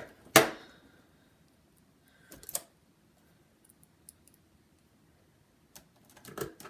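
Small clicks and taps as a precision screwdriver drives the screws that hold a laptop keyboard in place. There is one sharp, loud click about half a second in, then a few fainter clicks and ticks with quiet gaps, and a short cluster of clicks near the end.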